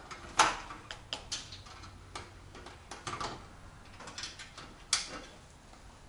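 A run of clicks and knocks from the camper trailer's metal fittings being handled. Two sharper knocks stand out, one about half a second in and one near five seconds.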